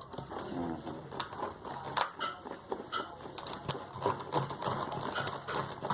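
Slime mixture of glue and foam being stirred in a small pot: irregular clicking and tapping of the stirring utensil against the pot.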